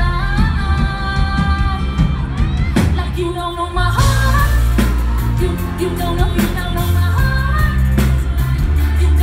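Live pop band playing with a woman singing lead into a microphone, over keyboards, drums and heavy bass; the band gets fuller, with bright cymbals, about four seconds in.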